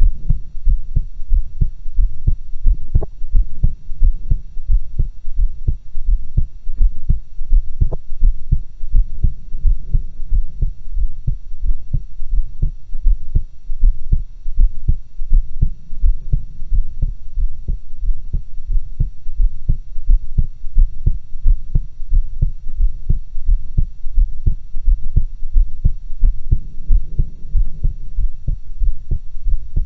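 A human heartbeat heard through a stethoscope: low, muffled lub-dub thumps repeating in a steady, even rhythm.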